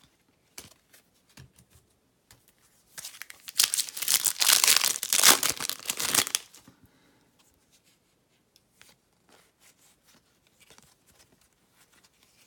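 A 2018 Topps Update baseball card pack wrapper being torn open: one crinkly tearing burst lasting about three seconds, starting a few seconds in. Faint light clicks of handling follow.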